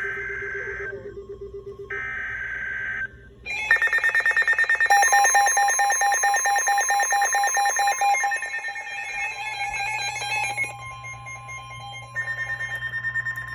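Weather alert radio sounding an emergency alert: two short bursts of buzzy data tones, typical of the SAME header that precedes a warning. About three and a half seconds in, a loud, fast-pulsing electronic alarm starts over a steady tone. It stops about eleven seconds in, and a steadier tone sounds near the end.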